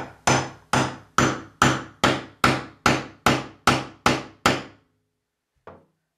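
Hammer tapping a metal drain removal tool down into a bathtub drain: about a dozen even strikes at a little over two a second, each ringing briefly, wedging the tool in so it grips the drain and won't slip when turned. A single faint knock follows about a second after the last strike.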